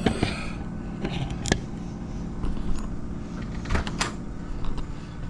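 A door being opened one-handed: a few sharp clicks and knocks from the latch and door over a steady low background noise.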